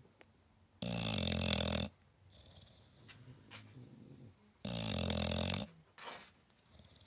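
A sleeping bulldog snoring fiercely: two loud, buzzy snores about four seconds apart, each lasting about a second, with quieter rasping breaths in between.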